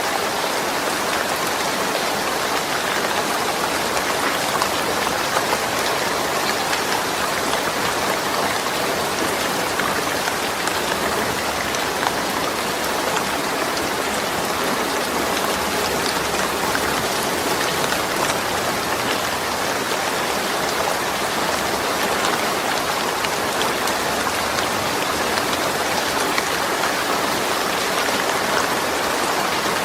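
Steady, heavy rain falling on a surface, an even dense patter with no pauses.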